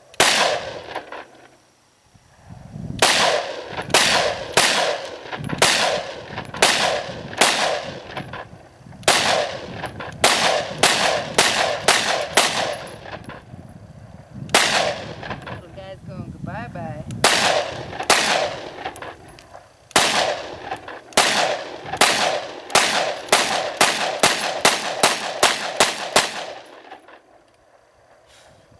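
Glock 26 9mm pistol fired fast in semi-automatic strings from a 30-round magazine. One shot comes first, then after a short pause come strings of two to three shots a second separated by brief pauses. Each shot has a short ringing tail.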